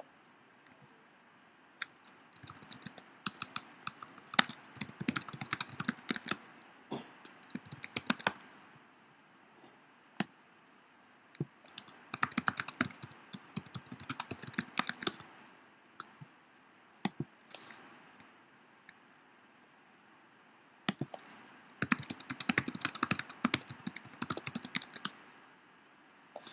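Typing on a Mac laptop keyboard: quick runs of key clicks in three spells of several seconds each, with a few lone keystrokes in the pauses between.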